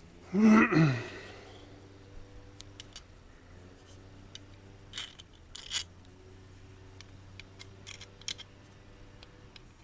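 A short vocal sound, like a grunt, falling in pitch about half a second in. After it come scattered light clicks and taps of small parts and tools being handled while a repair bracket is fitted to a VW TDI intake manifold flap arm.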